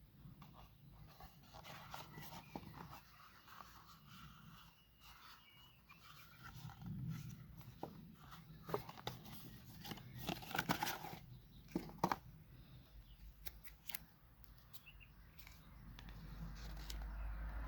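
Watch packaging being handled: soft rustling with scattered clicks and taps, a few sharper clicks around the middle. A low rumble builds near the end.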